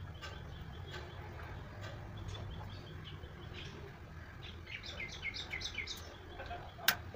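A bird calling: scattered short chirps, then a quick run of about six descending notes in the second half. A single sharp click sounds just before the end.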